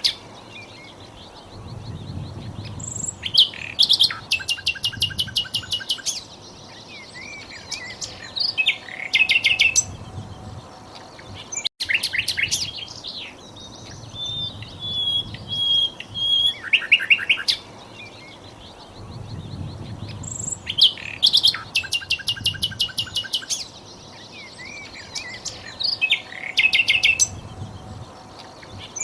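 Sikatan londo singing: phrases of rapid, evenly spaced high notes and short whistles, repeating every few seconds, with a brief dropout near the middle where the recording loops.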